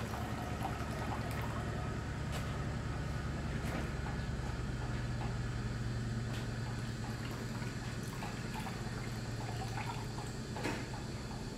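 Hands swishing and squeezing soaked seaweed in a metal bowl of water, with small splashes and drips, over a steady low hum.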